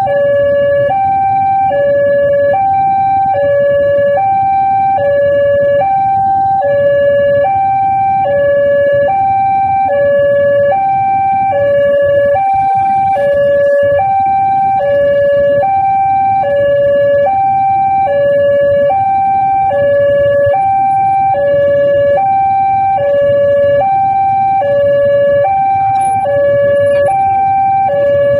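Railway level-crossing warning alarm sounding its loud two-tone high-low signal, the tones swapping about every two-thirds of a second without a break. The crossing is closed for an approaching train. The low rumble of waiting motorcycle and car engines runs underneath.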